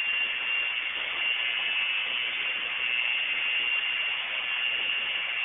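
A steady high-pitched whine over a constant hiss.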